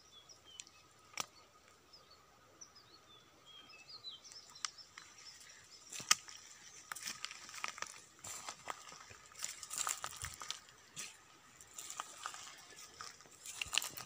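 Footsteps crunching and brushing through dry grass and twigs, growing busier from about halfway through. A few short high bird chirps come in the first few seconds.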